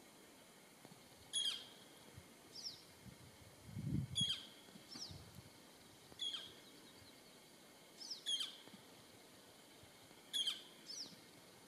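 Short, high bird chirps, each sliding quickly down in pitch, repeating about every two seconds and often followed by a softer chirp. A brief low rumble comes about four seconds in.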